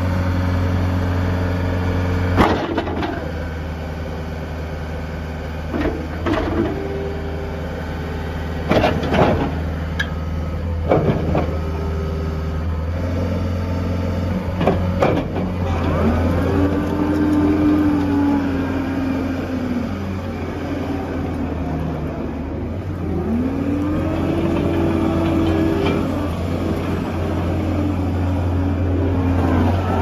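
John Deere 331G compact track loader's 91 HP Yanmar diesel running steadily while the hydraulic loader arms and bucket are worked. Sharp clanks come a few times in the first half. Twice in the second half a whine rises, holds and falls as the hydraulics take load.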